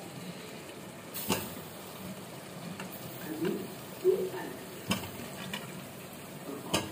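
Peeled raw potato pieces dropped by hand into an aluminium pot of chicken korma frying on the stove: a few sharp knocks as they land, over a steady sizzle.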